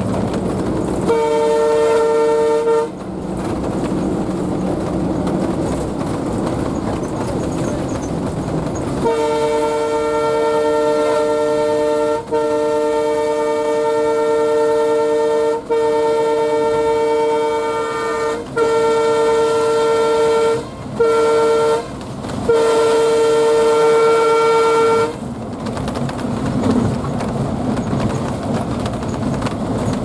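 Alco WDM-3D diesel locomotive's horn heard from inside the cab at speed, over the steady running noise of the diesel engine and wheels on track. One blast of about two seconds near the start, then a string of six blasts with brief gaps, the last ending about 25 seconds in.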